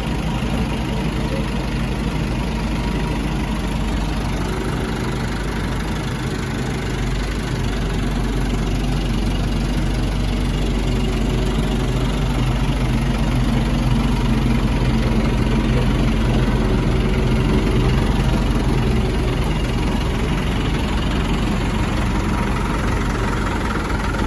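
Heavy diesel engine running steadily with a low hum, getting a little louder through the middle and easing off near the end.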